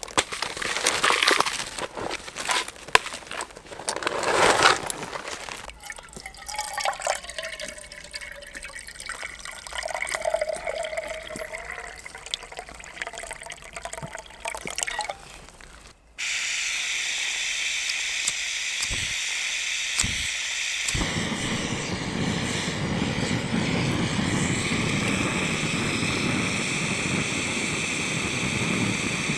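Water poured from a soft bag into a Jetboil cooking cup, the pitch rising as the cup fills. Then three sharp clicks of the stove's push-button igniter, and the Jetboil gas burner lights and runs with a steady hiss.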